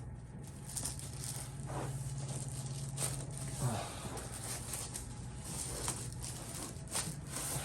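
Rustling and crinkling handling noises with a few sharp short clicks, over a steady low hum.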